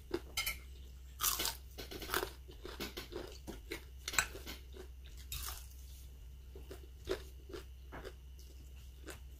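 A person chewing crispy fried fish close to the microphone: irregular crunches about every second, fewer and fainter toward the end.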